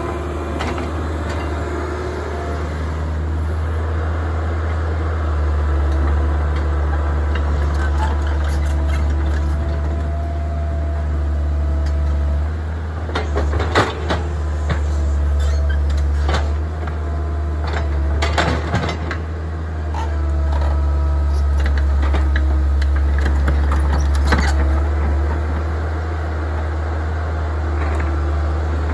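Kobelco tracked excavator's diesel engine running steadily under load, with a whine that comes and goes as the boom and bucket are worked. A cluster of clanks and scrapes from the bucket in dirt and debris about halfway through.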